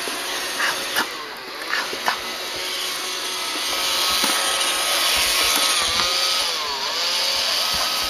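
Robot vacuum cleaner running on carpet: a steady motor and brush noise with a faint whine. It gets louder from about four seconds in, and the whine dips briefly in pitch twice near the end. A few short clicks come in the first two seconds.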